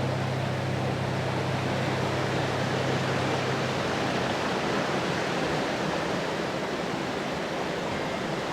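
Steady rush of falling water, an even hiss with no breaks. Low held tones under it fade out a few seconds in.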